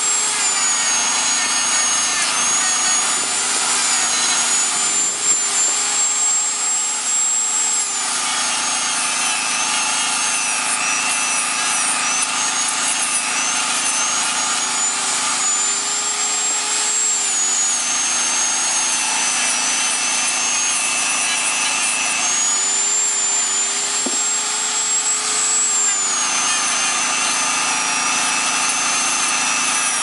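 Dremel 3000 variable-speed rotary tool running with a sanding drum, sanding old glue and rubber off the end of a car's intake hose. Its high motor whine sags in pitch and recovers several times as the drum bites into the rubber, over a steady gritty rasp.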